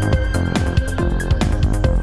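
Electronic dance music with a steady fast beat, about four beats a second, over a sustained bass.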